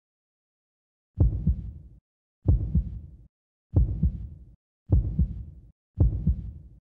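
Five deep double thumps, about one and a quarter seconds apart, like a slow heartbeat.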